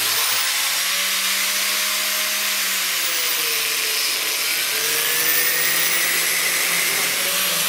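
Angle grinder running flat out, a pipe sleeve on its spindle pressed against a bicycle tyre and driving the wheel: a steady motor whine with a hiss of rubber on metal, wavering slightly in pitch. The reduction is not enough, so the wheel spins far too fast, around 100 km/h.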